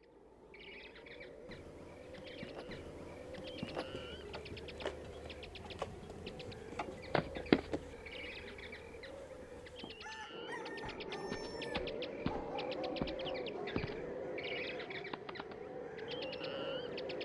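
Waterside ambience of birds chirping, with repeated rapid trills and a low wavering call beneath them. A few sharp clicks come near the middle, and a brief high buzzing trill a little later.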